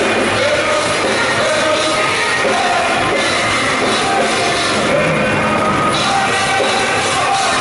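Live heavy rock band playing, with a male vocalist singing over loud guitars and drums.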